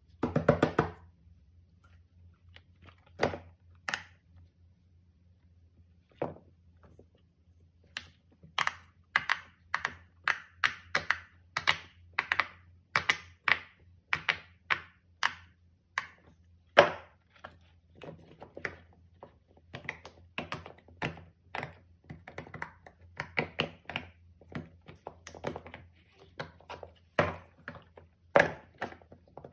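Silicone pop-it fidget toy bubbles being pressed by fingers: short popping clicks, a few scattered at first, then a quick irregular run of pops from about eight seconds in, with some thunks as the toys are handled.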